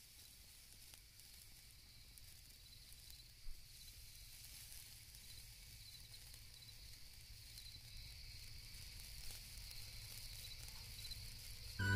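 Faint night insects chirping steadily over a soft hiss, with a single click about three and a half seconds in. Music starts right at the end.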